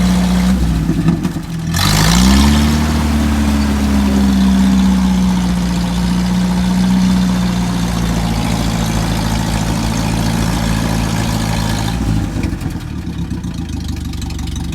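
UAZ engine running with its muffler off, so the exhaust is open. It dips, revs up about two seconds in, holds there, then eases back lower near the end, while pushing stream water out of the exhaust pipe.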